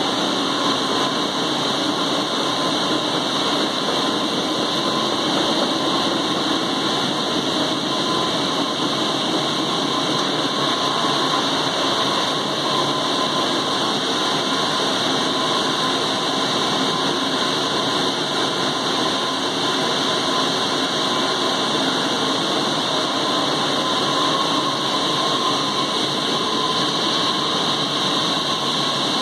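Teknoway T100 direct warping machine running, winding a sheet of yarn onto its beam: a steady mechanical hiss with a faint high whine, unchanging in level.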